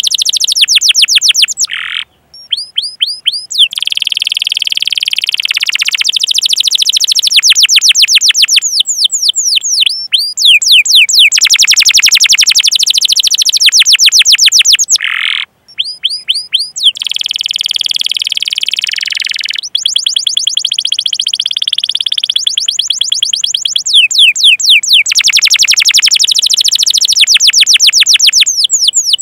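Domestic canary singing: rapid series of sharp falling 'cuit cuit' chirps alternating with rolling trills, broken by brief pauses about two seconds and fifteen seconds in.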